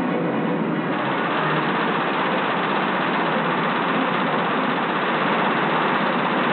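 Heavy machinery running with a steady mechanical noise and no distinct beat.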